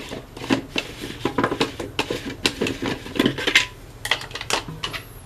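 A run of sharp plastic clicks and knocks as the pump head of a hand pressure sprayer is unscrewed and lifted off its bottle, dying down near the end.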